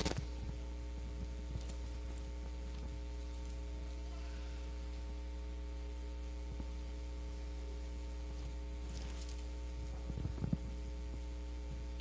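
Steady electrical mains hum, with a few soft clicks and rustles from Bible pages being turned, at the start and again near the end.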